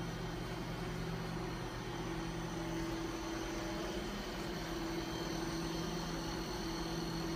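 Steady machine hum with a faint high whine above it, unchanging throughout: the running equipment and ventilation of the imaging room.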